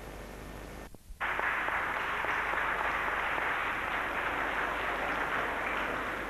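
Audience applauding in a sports hall, starting suddenly about a second in and easing slightly near the end. Before it there is only faint tape hiss.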